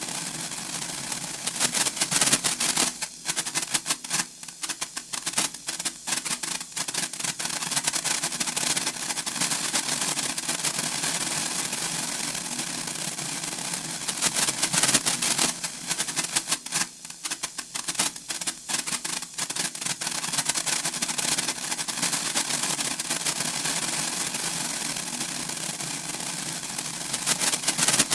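Senko hanabi (Japanese handheld sparkler) crackling and spitting sparks: a dense, rapid crackle that swells into intense bursts about two seconds in, around fifteen seconds in and near the end, thinning to sparse pops in between.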